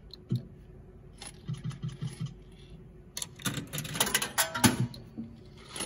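Bar slot machine sounds: a quick run of electronic ticks as the reels spin, then from about three seconds in a clatter of sharp metallic clinks with short ringing tones.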